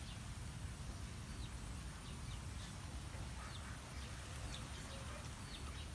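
Scattered short, high-pitched animal chirps, one every second or so, over a steady low rumble.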